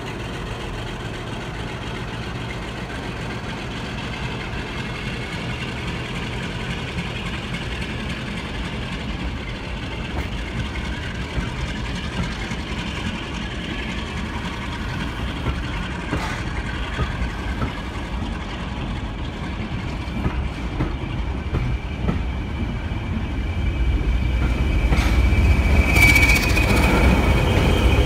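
Diesel-hauled heritage passenger train passing slowly below, a steady rumble of coaches on the rails. It grows louder over the last few seconds as the diesel locomotive comes underneath, with a high-pitched wheel squeal near the end.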